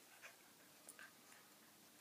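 Near silence with faint scattered ticks and small scuffling noises from two terriers at play, a Lakeland Terrier puppy and a Soft Coated Wheaten Terrier.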